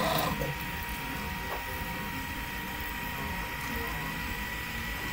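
Desktop FDM 3D printer running a print: a steady mechanical whir with a constant high whine, and a short louder sound right at the start.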